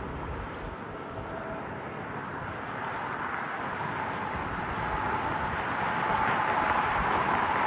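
Sun Country Boeing 737 jet engines approaching, a rushing roar growing steadily louder with a steady whine coming up about halfway in.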